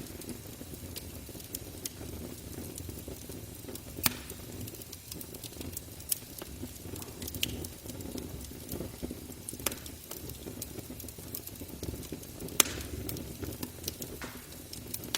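Campfire crackling steadily over a low rumble, with scattered sharp pops from the burning wood, the loudest about twelve seconds in.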